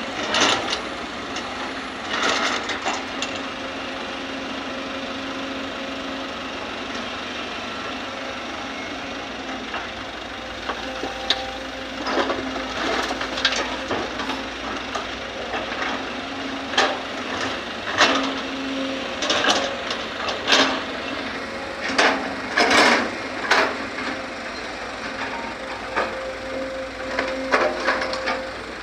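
Sumitomo hydraulic excavator running steadily under load, with repeated sudden clunks, scrapes and clatter as the bucket digs earth and soil and rocks drop into a dump truck's steel bed. The knocks come thickest in the second half.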